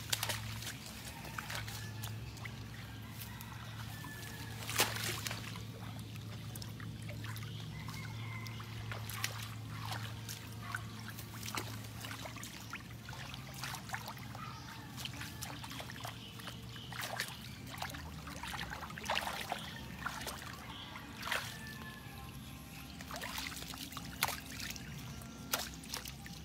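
Hands splashing and scooping in shallow muddy water while feeling for fish: irregular sharp splashes with trickling water in between.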